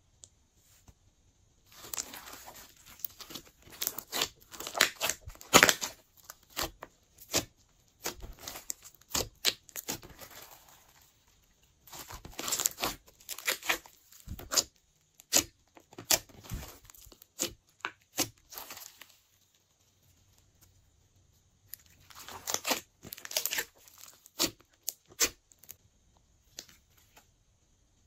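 Hands squishing and mixing glossy slime: sticky crackling and popping clicks in bursts, broken by a few short pauses.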